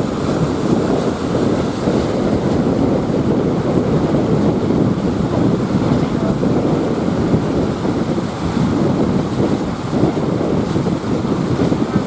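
Big waves breaking and surging against shore rocks, with strong wind buffeting the microphone: a loud, unbroken rush of noise, heaviest in the low end.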